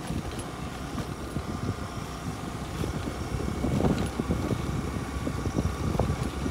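A vehicle driving over a rough off-road track: a steady low rumble with frequent irregular knocks and rattles, and a couple of stronger jolts about four and six seconds in.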